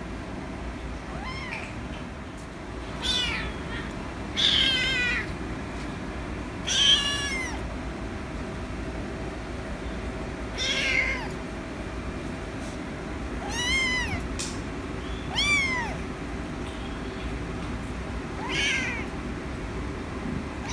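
Young kitten meowing repeatedly, about eight separate meows spaced a second or more apart, each rising and then falling in pitch.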